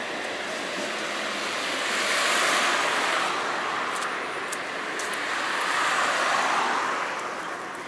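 Road traffic passing close by on a city street: two vehicles go by, one swelling and fading about two seconds in and another about six seconds in.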